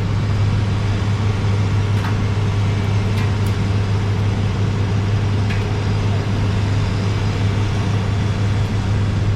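An engine running at a steady speed, a low even hum, with a few light clicks and taps over it.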